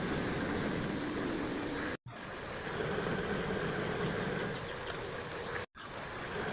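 Homemade rotary drilling machine running with a steady mechanical rumble. The sound cuts out for an instant twice, about two seconds in and near the end.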